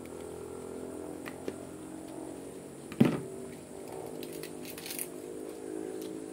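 Leafy greens being handled in a metal wok of soup, with one sharp knock about three seconds in and a few light metallic clicks near the end as a ladle starts turning the greens. A steady low hum runs underneath.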